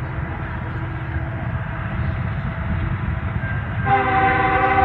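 Freight locomotive's air horn starts blowing a chord of several tones about four seconds in, over a steady low rumble.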